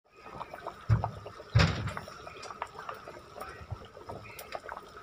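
Thick rice and urad dal mixture simmering in an aluminium pot, with scattered small pops and ticks, and two loud thumps about one and one and a half seconds in.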